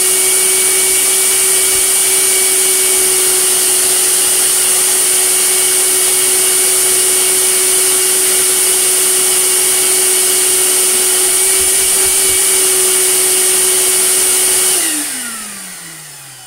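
Goblin Aquavac Bulldog wet-and-dry drum vacuum cleaner running steadily, with a constant whine over a loud airflow hiss. It is switched off about 15 seconds in, and the motor winds down with falling pitch.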